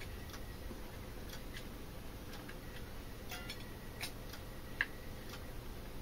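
Faint, irregular small clicks and taps of a TV remote's plastic case and circuit board being handled and fitted together, with one sharper click a little before five seconds in.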